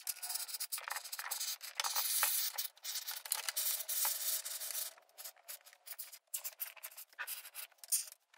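Can of expanding spray foam dispensing through its tube: a hissing, sputtering spray, almost continuous for about five seconds, then in short spurts.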